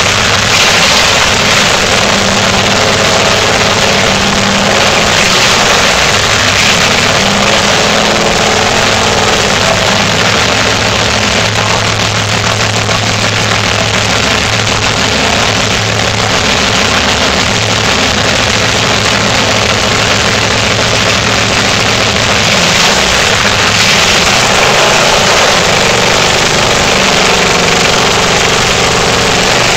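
Ford flathead V8 running steadily at idle, loud through open exhaust headers, on its test fire.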